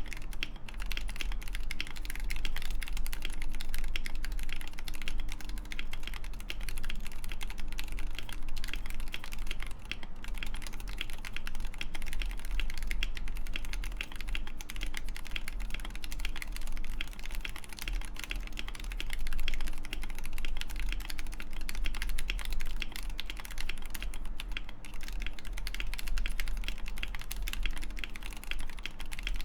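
Continuous fast typing on a custom 60% mechanical keyboard with Wooting 60HE internals and lubed Gateron Lekker L45 magnetic switches in a steel plate, foam-dampened Mekanisk FJELL case: a dense stream of keystroke clacks with occasional heavier stabilized key presses.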